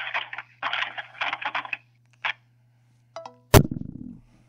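A phone call ending over the phone line: muffled sounds on the line, then a few short beeps just after three seconds and a loud click as the call is hung up, over a steady low line hum.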